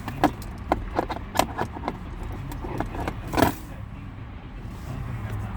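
Plastic clicks and taps as a smart key fob is handled and set into the truck's programming slot, a string of short clicks with the loudest clack about three and a half seconds in. A steady low hum runs underneath.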